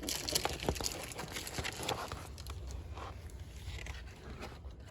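Amplifier packaging and loose parts being handled: scattered light clicks, taps and rustles, quieter near the end.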